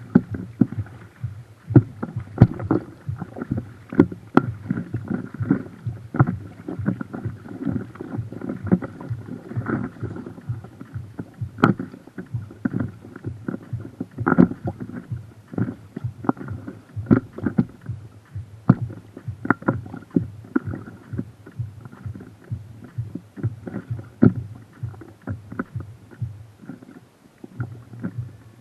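Choppy river water slapping and gurgling against a floating boat's hull close to the microphone, a continuous irregular patter of small knocks and splashes over a low rumble.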